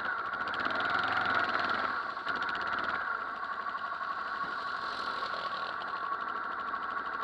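Quad bike engines running through a flooded track, one engine humming steadily throughout. Another quad is ridden through the deep water and passes close about two-thirds of the way in, with a rush of splashing water.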